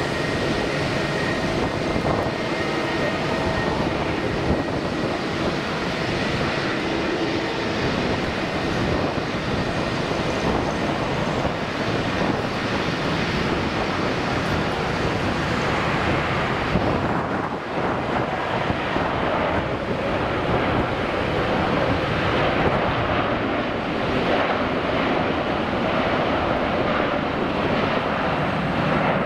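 Jet engines of a Hainan Airlines Airbus A330 on the runway: a steady, loud rushing noise with faint whining tones in the first few seconds, and wind on the microphone.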